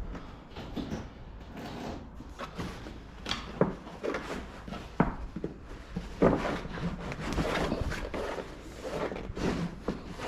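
Canvas top being slid along a metal mounting channel on a Jeep body: irregular scraping and rustling, with several sharp knocks and a longer rasping slide near the middle.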